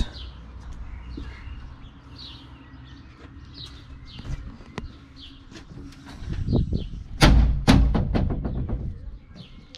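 A city bus's rear engine-bay door being shut: a rattling build-up, then two heavy thuds a half-second apart about seven seconds in. Small birds chirp over a faint low hum.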